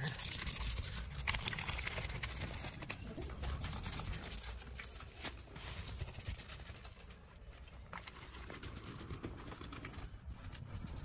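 A small detailing brush scrubbing over a foam-covered car grille and badge: scratchy brushing with many small clicks over a low rumble, easing off for a while past the middle.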